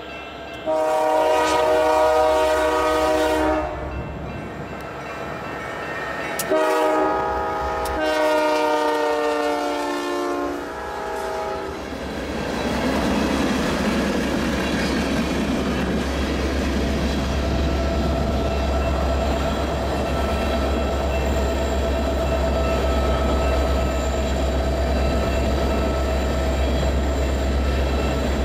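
A diesel freight locomotive sounds its multi-chime horn: one long blast, then after a pause a shorter blast running straight into another long one. Then the train's tank cars roll past with steady wheel-on-rail noise and a low rumble, a faint steady whine running under it.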